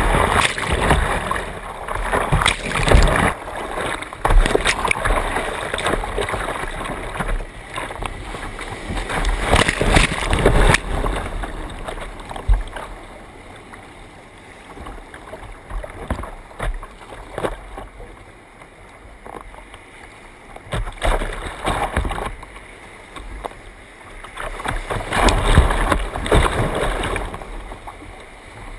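Whitewater rapids rushing and splashing against a kayak, with short splashes from the water and paddle. Loudest during the first ten seconds and again a few seconds before the end, calmer in between.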